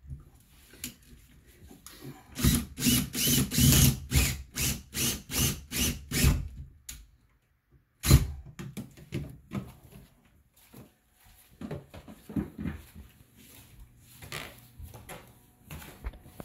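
Cordless drill run in a quick string of short bursts, about two or three a second for several seconds, then a single sharp knock about eight seconds in, followed by scattered light clicks and handling noise.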